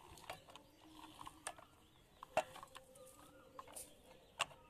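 Hard plastic toy parts clicking and knocking as they are handled: scattered small clicks, with a sharper knock about halfway through and another near the end.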